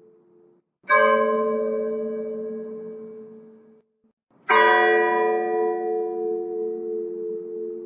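A single church bell tolling slowly for a funeral: two strokes about three and a half seconds apart, each ringing on and fading away. The first stroke's ringing cuts off suddenly just before the second.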